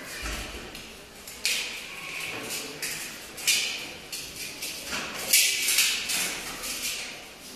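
Large steel ball rolling across a concrete floor with a low rumble. It makes a series of sudden gritty scrapes as it grinds over broken plaster, the loudest about five seconds in.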